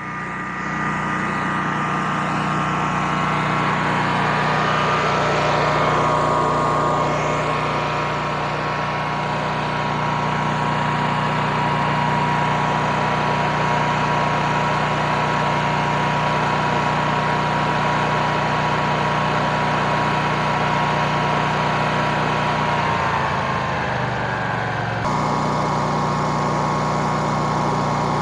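Westinghouse WGen20000 portable generator's 999 cc V-twin OHV engine running steadily at full speed with eco mode off, a steady hum that grows louder over the first few seconds. About three-quarters of the way through the pitch sags briefly, then the sound jumps back to a steady run.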